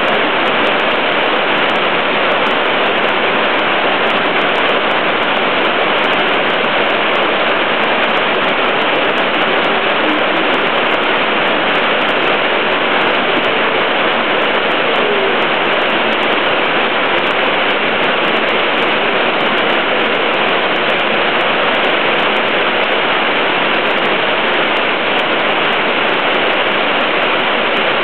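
Heavy rain pouring down in a steady, loud hiss, with no let-up.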